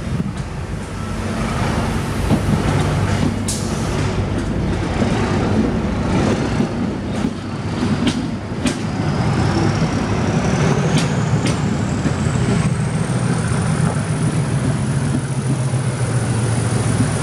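Class 37 diesel-electric locomotive's English Electric V12 engine working hard under full power as it pulls away, a steady heavy running note. Its turbocharger whistle climbs in pitch over several seconds midway and then holds high, with a few sharp clicks over the top.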